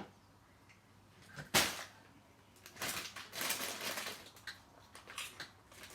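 Handling noise: a sharp knock about a second and a half in, then a stretch of crackling and rustling with scattered clicks.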